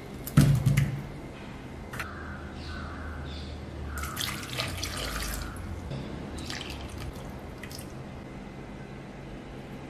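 Soft ripe mangoes tipped from a glass bowl into a clay pot, landing with a dull thud about half a second in. Around four seconds in, water is poured from a cup over them, splashing into the pot for about a second and a half, with a few small knocks around it.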